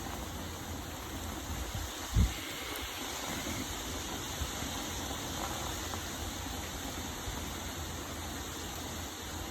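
Steady hiss of heavy rain, with one short low thump about two seconds in.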